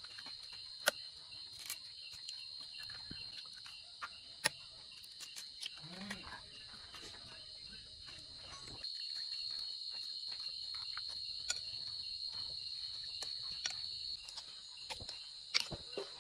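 Steady high chirping of night insects, swelling louder for a few seconds midway, with sharp clicks and taps of eggshells being cracked over a ceramic bowl and, near the end, a metal spoon scraping and knocking in the bowl.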